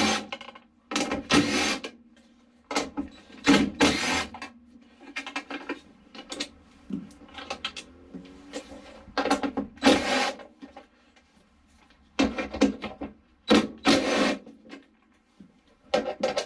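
DeWalt cordless driver with a socket extension running in about six short bursts, spinning out the 10 mm bolts that hold the fuel tank access cover to the car's floor pan.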